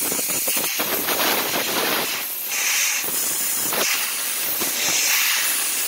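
Air compressor blow gun hissing steadily as compressed air is blasted through an RC brushless motor's can, blowing out electrical cleaner and dirt.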